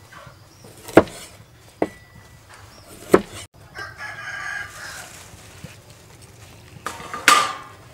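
A cleaver chops limes on a thick wooden chopping board, three sharp knocks in the first few seconds. Chickens cluck and a rooster crows in the background, with a louder call near the end.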